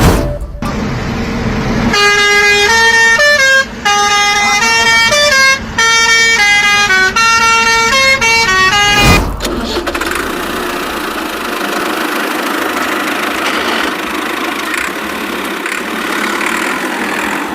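A vehicle horn playing a tune of short notes, like a musical car horn, for about seven seconds, followed by a steady rushing noise.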